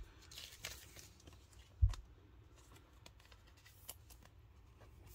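Faint handling noises: light rustles and small clicks, with one short, low thump about two seconds in.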